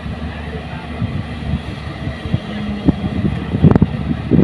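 Diesel engine of a JCB hydraulic excavator running as it loads soil into a dump truck, a steady low rumble, with the waiting trucks' engines running too. A few knocks and thuds come in near the end.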